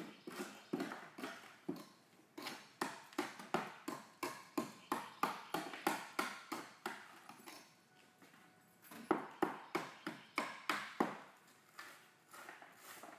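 Hammer tapping on a wooden form around a freshly poured concrete manhole lid: sharp, separate knocks about two to three a second, stopping briefly past the middle and then starting again.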